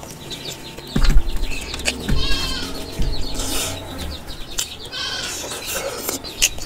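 Close-up eating sounds: wet chewing and mouth clicks of puri dipped in curry, with a few dull thumps. Farm animals call briefly in the background, twice.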